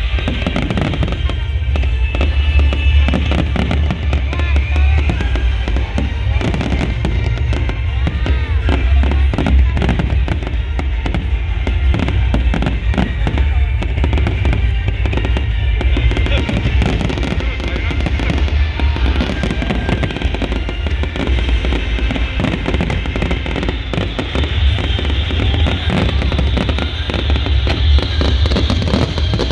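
Dense, continuous barrage of firework shells bursting, sharp cracks over deep booms, with music playing underneath.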